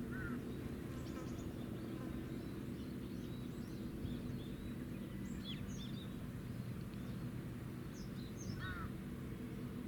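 Steady low drone of the destroyer Kaga's engines, with several fixed tones. Birds give short high chirps over it a few times.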